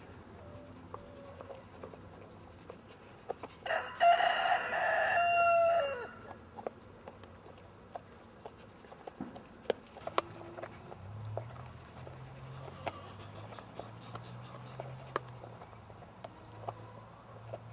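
A rooster crowing once, about four seconds in: a single call of about two seconds that drops in pitch at the end. Scattered sharp clicks of a mastiff chewing raw pork run underneath.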